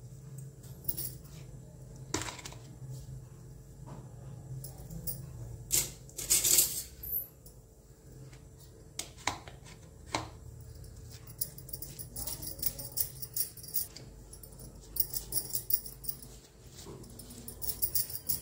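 A butter knife scraping butter across slices of white bread in quick, scratchy strokes, with a few light clicks, over a steady low hum.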